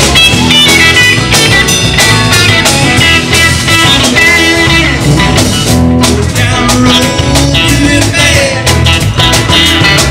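Rock and blues band music with electric guitar, bass and drums playing at a steady beat.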